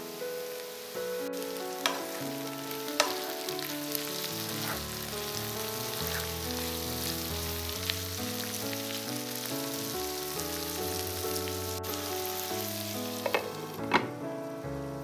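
Food frying and sizzling in a pan, with a few sharp clicks of a utensil against the pan, over background music.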